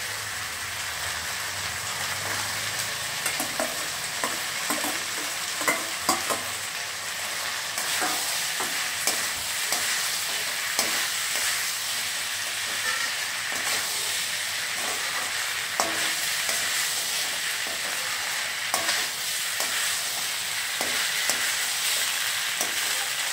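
Chilli cauliflower, onions and peppers sizzling in a stainless steel wok while a steel spatula stirs and tosses them. Frequent sharp clinks and scrapes of metal on metal run over a steady frying hiss.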